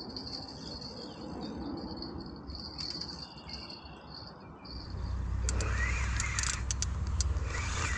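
Insects chirping in a steady, high-pitched band. About five seconds in, a low rumble starts, with clicks and rustling over it.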